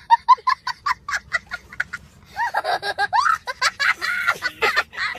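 A young boy laughing: a quick run of short high-pitched laughs, then after a short pause longer squealing laughs that slide up and down in pitch.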